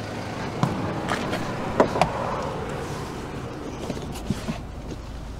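A person climbing into the third-row seat of a Toyota Land Cruiser Prado: rustling of clothing and upholstery with several knocks and bumps, the loudest pair about two seconds in.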